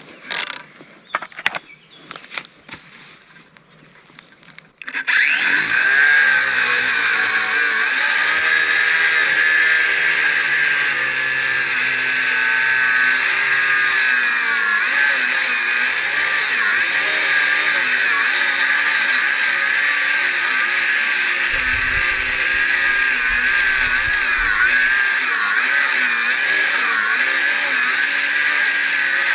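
Angle grinder starting up about five seconds in and cutting into a large piece of scrap iron: a steady high screech of the disc on metal over the motor, whose pitch sags and recovers as it bites under load. Before it starts there are only a few faint handling clicks.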